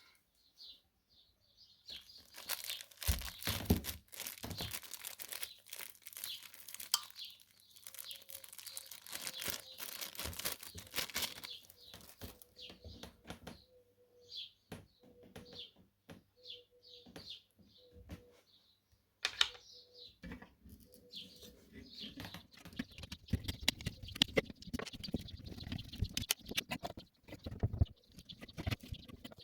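Plastic packaging crinkling and tearing in irregular bursts of crackles and clicks, as a delivered electronic chip is unwrapped. A run of short high chirps sounds through the middle.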